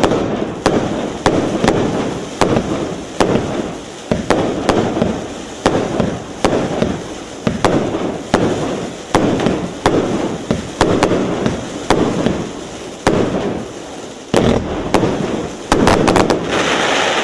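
A 100-shot, 1.2-inch firework cake firing shot after shot, nearly two a second, each launch followed by the burst overhead. Near the end the shots come in a quick dense volley.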